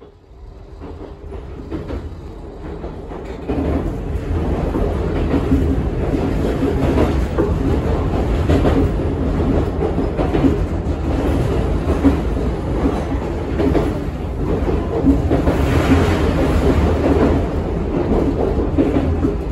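Running noise inside an Iga Railway 200 series electric train car: a steady rumble with occasional louder knocks. It rises in level over the first few seconds, then holds steady.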